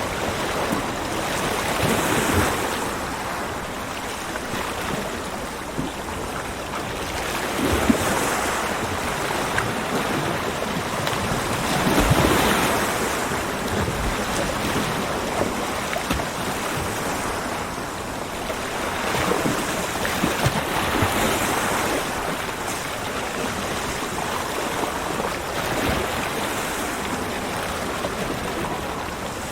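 Ocean surf breaking and washing onto a beach, a continuous wash that swells and eases every few seconds, with a stronger surge about twelve seconds in and again around twenty seconds.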